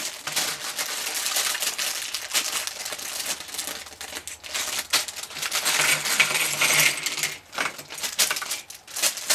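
Plastic LEGO polybag crinkling and crackling as it is torn open and shaken. Near the end, small plastic LEGO pieces clatter out onto a tabletop.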